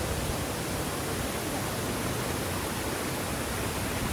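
Waterfall: falling water rushing as an even, unbroken hiss.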